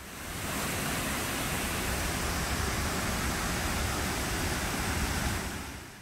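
Steady rushing roar of three large pump-fed artificial waterfalls pouring down a rock face into their basins. It fades in over the first half second and fades out near the end.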